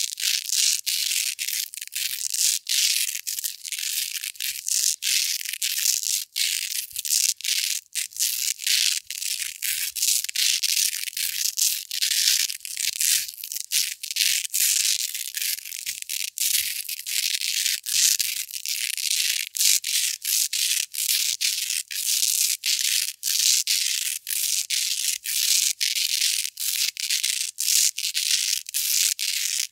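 Hook-and-loop (Velcro) tape scratched and rubbed against itself in quick repeated strokes, about two a second: a crisp, hissy, crackling rasp with no low end.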